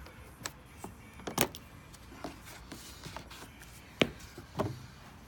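A scattered series of light clicks and knocks at uneven intervals, the loudest about four seconds in and another just after.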